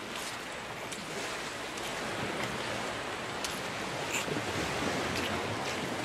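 Gentle Gulf of Mexico surf washing steadily on the beach, swelling slightly, with a few faint, short, high clicks now and then.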